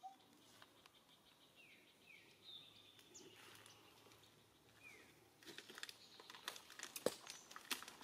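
Faint outdoor ambience with a few short bird chirps that fall in pitch. From about five seconds in, a run of quick crackling clicks and rustles sets in and grows denser.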